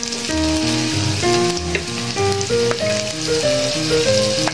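Minced garlic sizzling steadily in hot oil in a wok as it is stirred with a metal spatula, with a few sharp clicks. Background music with a stepping melody and bass plays over it.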